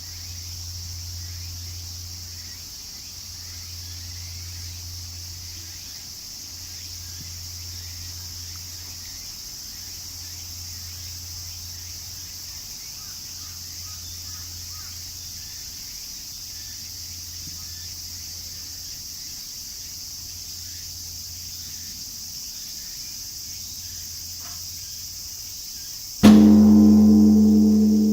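A large bell struck once, about 26 seconds in, ringing on with several steady tones that fade slowly. Before the strike there is only a steady low hum and a faint high hiss.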